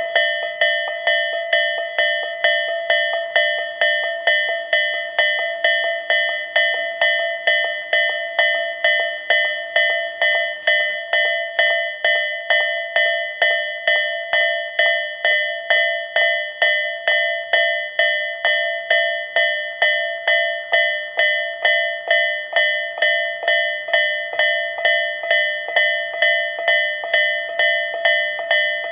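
Japanese railroad level-crossing warning bell ringing 'kan-kan-kan' steadily, about two evenly spaced strikes a second, while the crossing is closed for a train.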